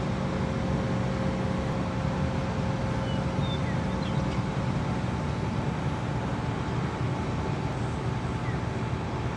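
Heavy diesel engine running steadily at constant speed, a drone that does not change in pitch or level.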